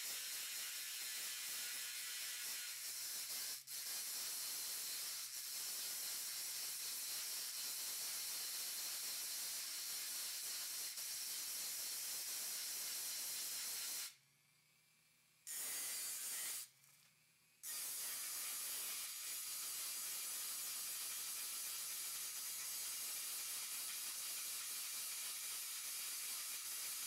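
Dremel rotary tool on a flex shaft running at high speed, its bit grinding at a rivet on the crib's metal frame to take it apart: a steady high-pitched hiss. It cuts off about halfway through, runs again for about a second, stops, then runs on steadily.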